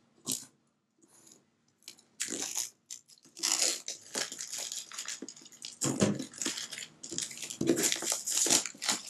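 Plastic shrink-wrap being slit with a pocket knife and peeled off a cardboard box: a brief tick at first, then crinkling and crackling in uneven bursts from about two seconds in.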